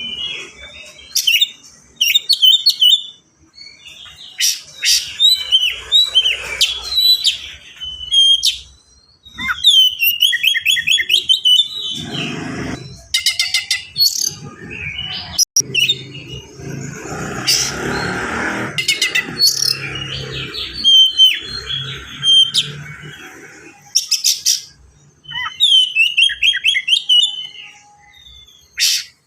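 Oriental magpie-robin (kacer) singing in quick, densely packed phrases of varied whistles, trills and sharp notes, with mimicked song. Across the middle, a stretch of muffled broad noise lies under the song.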